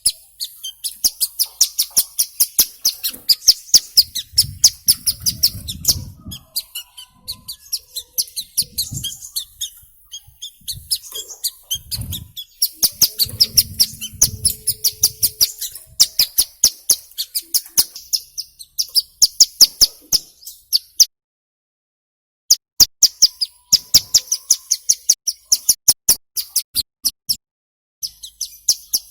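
Ciblek gunung (hill prinia) calling: long runs of sharp, high chirps, a few a second, broken twice by short gaps in the last third. Faint low rumbles sit under the calls near the middle.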